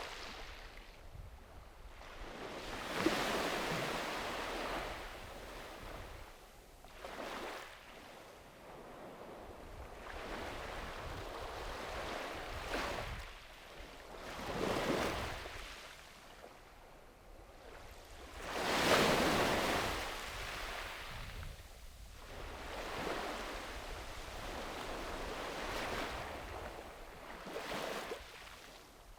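Sea waves breaking and washing up a beach, surging in and fading back every few seconds, the strongest about three, fifteen and nineteen seconds in, with a low rumble of surf beneath.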